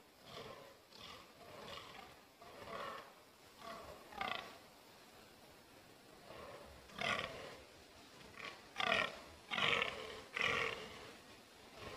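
Fallow bucks groaning in the rut: a rhythmic run of short, croaking belches, about one and a half a second. The calls are fainter at first and louder from about seven seconds in.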